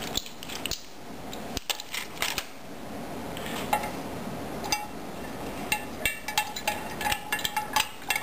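Light clinks and taps of a spoon against containers while a half-teaspoon of calcium hydroxide powder is measured and added. The taps are scattered at first and come in quick runs in the second half.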